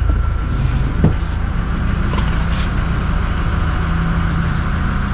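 A vehicle engine idling steadily, a low even hum, with a single sharp click about a second in.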